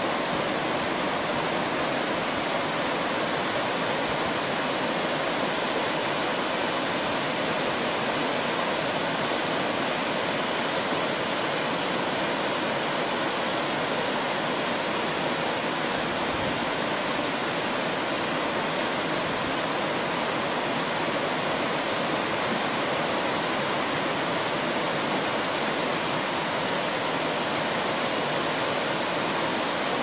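Waterfall cascading over sloping rock slabs: a steady, even rush of falling water.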